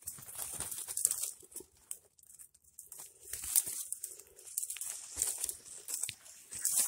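Dry leaves and twigs rustling and crackling in irregular bursts, with a few sharp snaps, as a hand reaches through brush to pick up a downed dove.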